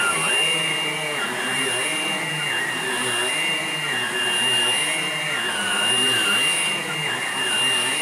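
Hoover Blade+ cordless stick vacuum running with its brush roller on. It makes a steady high whine, and its pitch wavers up and down about once a second as it works the floor.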